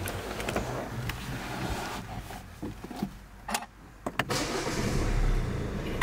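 Clicks and handling noises inside a Ford Focus, then the engine starting about four seconds in and settling into a steady run.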